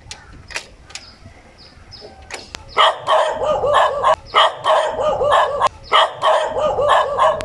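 Dog barking in a rapid, steady run of about three barks a second, starting loud about three seconds in after a few quieter short sounds.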